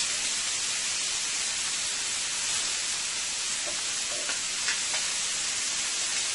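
Shrimp sizzling in butter and olive oil in a cast-iron skillet: a steady high hiss, with a few faint clicks of metal tongs against the pan around the middle as the shrimp are turned.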